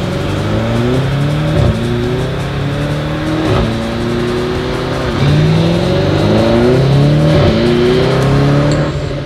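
Lamborghini Urus twin-turbo V8 through a racing exhaust, run hard up through the gears on a chassis dyno. The engine note climbs in pitch and drops sharply at each of about four upshifts, then fades near the end.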